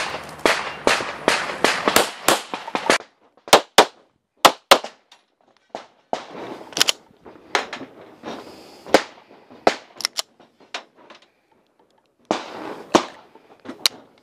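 Semi-automatic pistol firing outdoors, sharp cracks each with a short echo: a quick string of about three shots a second, then slower, uneven single shots with pauses, then another close group near the end. The caption in the picture says the pistol's trigger return spring has broken.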